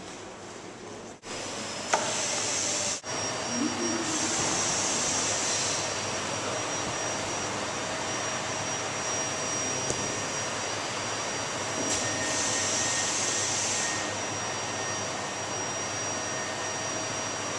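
Vacuum pump drawing the air out from between two PVC sheets to shrink-wrap a performer: a steady rushing drone with a thin high whine. A brighter hiss swells for a few seconds at a time.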